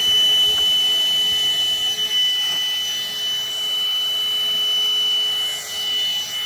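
Cordless handheld vacuum running steadily on its low speed setting, a constant high-pitched motor whine over the rush of air, as it sucks tortilla chip crumbs up from a carpet.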